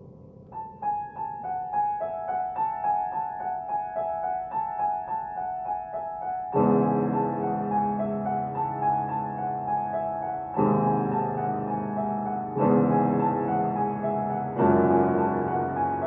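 Grand piano playing: a quick figure of alternating high notes starts about half a second in, and from about six seconds in deep chords are struck beneath it roughly every two seconds.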